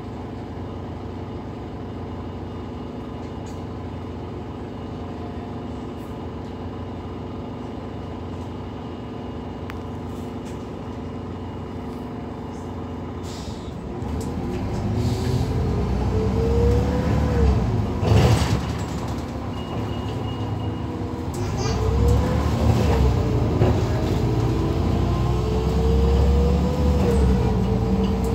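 Irisbus Citelis 12 natural-gas (GNV) city bus heard from inside: the engine idles steadily while the bus stands, then about halfway through it pulls away, the engine pitch rising and dropping back several times as the gearbox changes up. A short sharp noise stands out shortly after the bus moves off.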